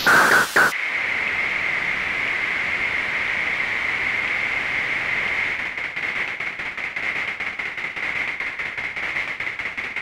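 Electronic noise soundtrack: a short loud burst at the start, then a steady static hiss centred on a high whistle-like band, which begins to flutter rapidly about halfway through.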